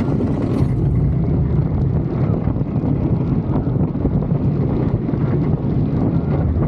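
Wooden roller coaster train running at speed over its wooden track, making a steady low rumble, with wind buffeting the microphone.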